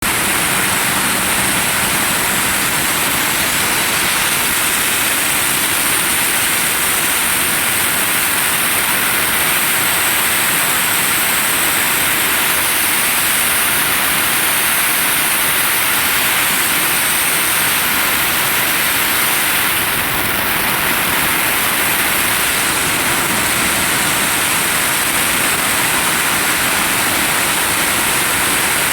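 Compressed air hissing steadily and loudly from the P250 air compressor at its new fitting, without a break.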